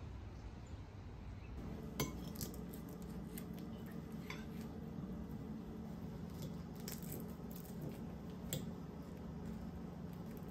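Metal fork cutting into a piece of baklava on a ceramic plate: scattered sharp clicks and scrapes of the utensil against the plate, the loudest about two seconds in and a quick cluster around seven seconds, over a low steady hum.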